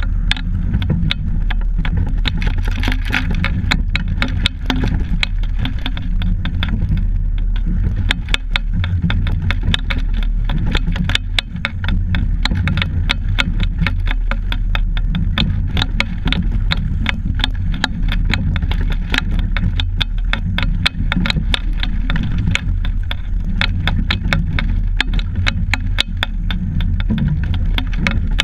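A double scull under way, heard from a camera fixed to its deck: a steady low rumble of wind and water on the microphone, with a fast, irregular rattle of clicks throughout.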